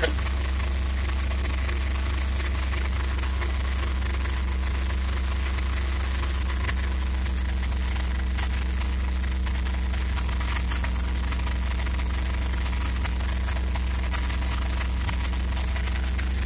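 1969 Dodge A100 van's 318 V8 idling steadily while it warms up after a cold start, heard close with the engine cover off.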